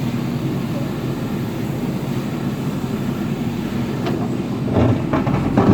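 A JCB earthmover's diesel engine running steadily while working, with a few knocks and clanks near the end.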